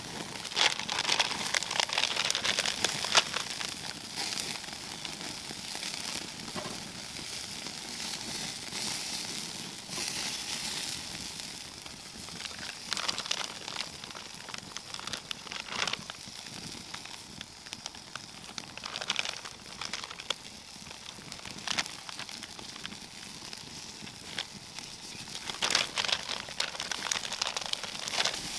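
Crinkling and rustling in the first few seconds, then a small hickory wood fire in a Dakota fire pit crackling steadily, with scattered sharper pops.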